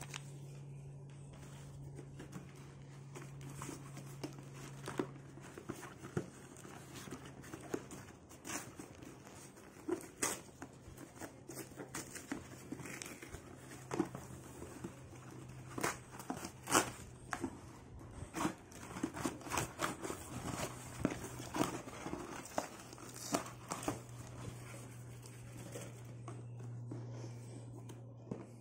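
Paper and corrugated cardboard packaging being torn and crinkled by hand, with many irregular crackles and sharp rips, busier in the second half, over a steady low hum.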